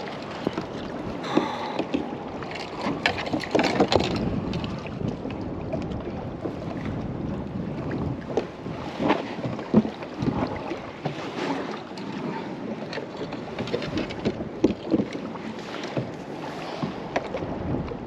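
Water splashing and lapping against a NuCanoe Frontier 12 kayak as a double-bladed paddle dips in at irregular intervals. Wind buffets the microphone.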